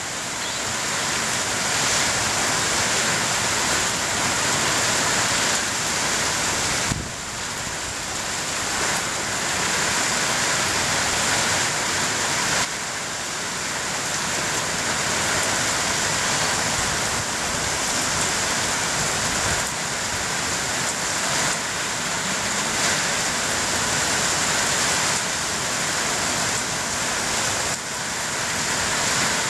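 Rain pouring down steadily, a dense even hiss that eases and swells slightly a few times.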